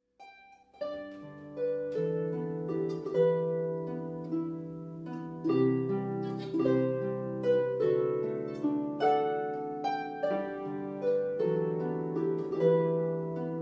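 Background music: a slow melody of plucked string notes over held low notes, starting about half a second in after a brief silence.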